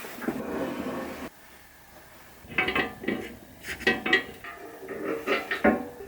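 A string of light knocks and clinks of hard parts being handled and set down, some briefly ringing, after a short rustling or scraping noise at the start.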